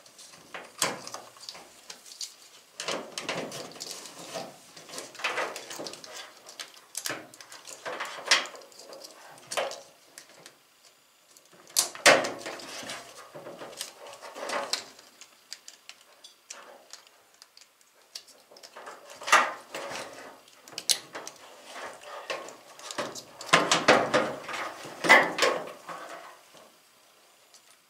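Plastic wire-harness connectors being plugged into a washer's control board, with irregular clicks, rattles and rustling of the wires as they are handled.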